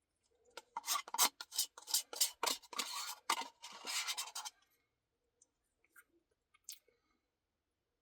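Close-up eating sounds from a spoonful of cookie-filled Blizzard ice cream: a quick, irregular run of crunching and scraping strokes for about four seconds. A few faint clicks follow.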